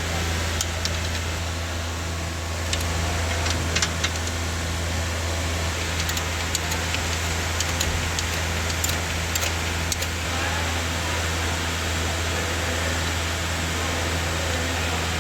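A steady low mechanical hum, with scattered light clicks and taps of hand tools on metal as the engine's oil sump is being unbolted.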